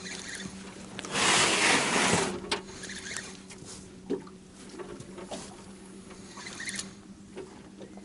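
Choppy waves slapping and lapping against the side of a small boat, with scattered small knocks. About a second in, a louder rush of noise lasts about a second, and a steady low hum runs underneath.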